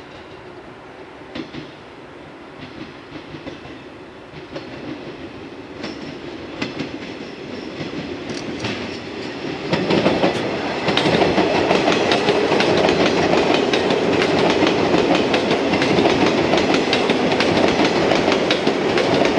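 Yellow JR West 115-series electric multiple unit, two sets coupled, approaching and running past at low speed. The running noise grows slowly, then turns loud about halfway through as the train comes alongside, with wheels clicking over the rail joints.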